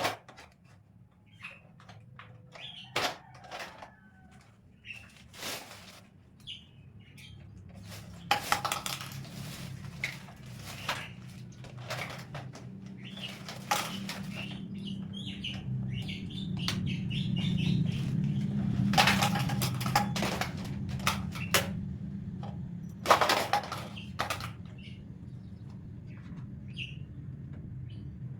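Shoe rack parts being handled and fitted together: a run of irregular clicks, knocks and clatter with rustling, busiest in the middle, over a low steady hum.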